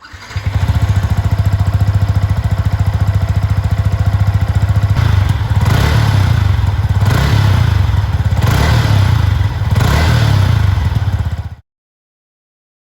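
Yamaha XSR 155's 155 cc single-cylinder engine on its stock exhaust, idling with a steady quick pulse, then revved briefly four times. It cuts off abruptly near the end.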